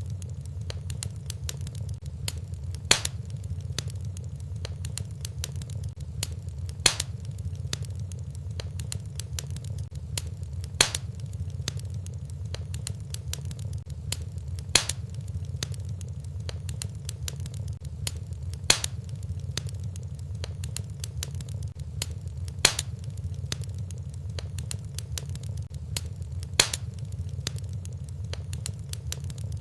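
Wood fire burning in a fireplace: a steady low rumble of flame under a scatter of small crackles, with a sharp loud pop about every four seconds at very even spacing.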